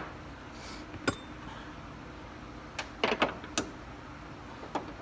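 Clicks and knocks of hand tools and metal being handled at a car door hinge: one sharp click about a second in, then a quick run of clicks and knocks about three seconds in, over a steady low hum.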